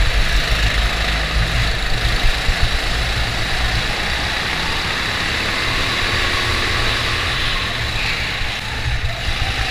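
Go-kart engine running as the kart drives around the track, heard from an onboard camera, with a steady low rumble.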